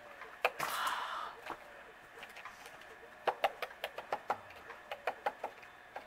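Woodpecker pecking at tree bark: a few single sharp taps, then a loose, irregular run of about a dozen taps in the second half. A short scratchy noise comes about a second in.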